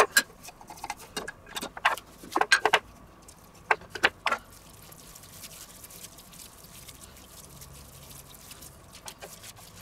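Small glass spice jars with metal lids being opened, shaken over raw minced meat and set down on a wooden cutting board: a string of sharp clicks and taps through the first four seconds or so. After that, only faint handling noise and a steady faint hum.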